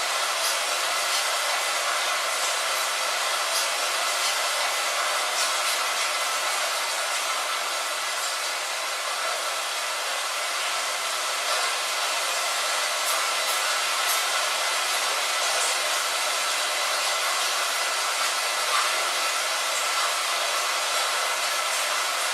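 Light rain on a window glass: a steady, thin hiss with scattered faint taps of drops.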